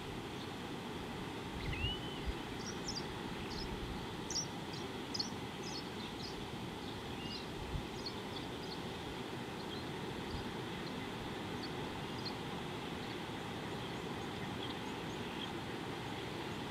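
Small birds calling with short, high chirps, thickest in the first half, over a steady low background rumble. A couple of dull low thumps come about two and eight seconds in.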